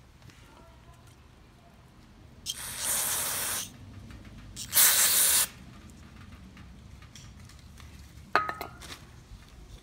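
Aerosol carburetor cleaner sprayed through its red extension straw onto a small carburetor part in two short hissing blasts, about a second each, the second louder. A single sharp click near the end.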